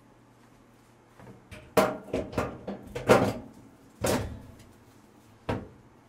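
Sheet-metal front cover panel of a kitchen range hood being fitted back onto the hood: a run of clunks and knocks of metal on metal from about a second and a half in, and one more sharp knock near the end.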